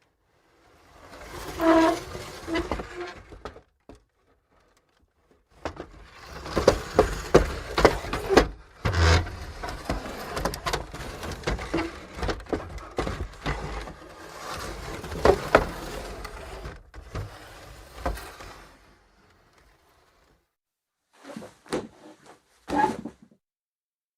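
Wooden chair creaking and scraping, with a short squeak about two seconds in, then a long stretch of sliding and scraping across the floor full of small knocks, and a few short separate knocks near the end.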